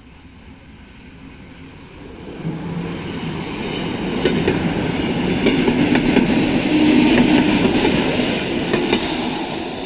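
Polregio EN57 electric multiple unit passing close by, its wheels clattering over the rails with scattered sharp clicks. The sound builds from about two seconds in, is loudest past the middle and fades near the end.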